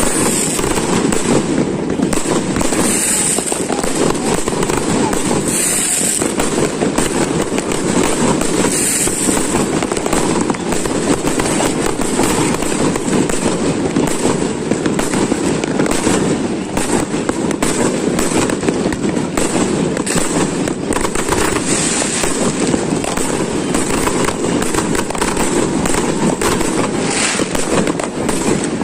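Many fireworks and firecrackers going off at once: a dense, unbroken crackle of rapid bangs, with now and then a brief high hiss.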